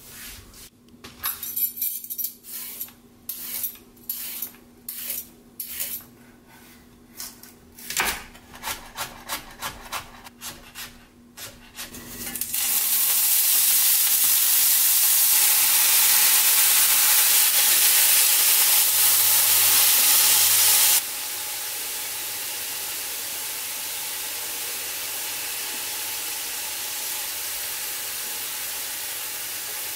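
A run of uneven knocks and clatters, about two a second. About twelve seconds in, a sudden loud sizzle starts as drained, julienned burdock root goes into hot oil in a frying pan. Just past twenty seconds the sizzle drops abruptly to a quieter, steady frying hiss.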